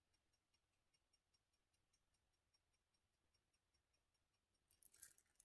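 Near silence with faint, rapid, evenly spaced ticking, several ticks a second, from the open movement of an Orient quartz chronograph-alarm wristwatch. A few soft handling clicks come near the end.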